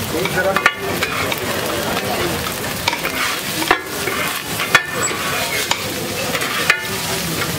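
Egg rice frying on a large flat griddle with a steady sizzle, as two metal spatulas scrape through it and toss it. About four sharp clanks of spatula on pan stand out.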